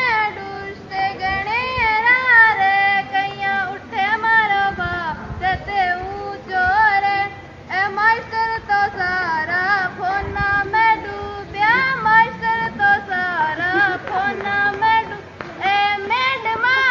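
A girl singing a song solo, in melodic phrases with short breaks between them.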